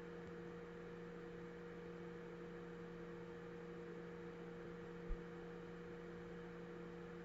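Steady electrical hum in the background, a few constant low tones, with a single faint low bump about five seconds in.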